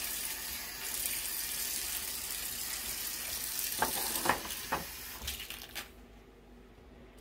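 Kitchen mixer tap running into a sink while dishes are scrubbed, with a few sharp clinks of crockery about four seconds in. The water stops about six seconds in.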